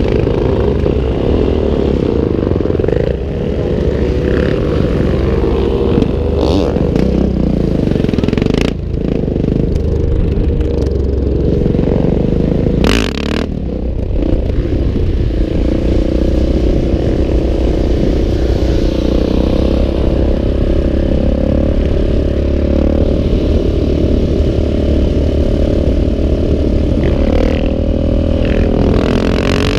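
Husqvarna 701's big single-cylinder engine running hard under the rider, heard from a helmet-mounted camera over a heavy low wind rumble. The engine note rises and falls at first, then holds fairly steady through the second half as the bike is kept on the throttle in a wheelie.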